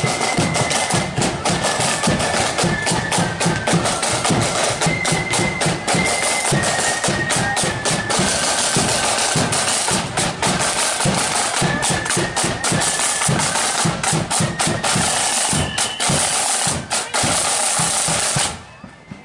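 Marching flute band playing: shrill flutes carry a melody over rapid snare drum and bass drum beats. The music stops sharply near the end.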